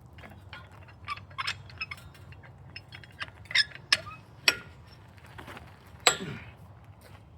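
Irregular light clicks, clinks and knocks over a low steady hum, with a sharper knock about six seconds in.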